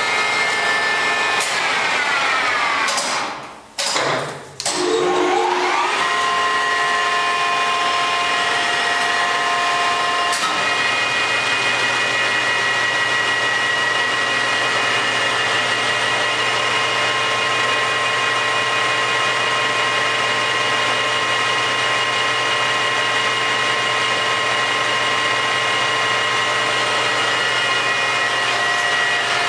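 A Promax 26" x 120" engine lathe running with a steady whine of several tones. About two seconds in the whine falls in pitch and almost dies away, then rises again and is back to a steady run by about six seconds in. Around ten seconds in the tone changes and a low hum comes in.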